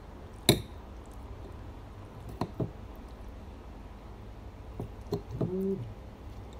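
Fork and spoon clinking and scraping on a plate of fried noodles while eating: one sharp clink about half a second in, lighter taps a couple of seconds later. Near the end comes a short hummed 'mm'.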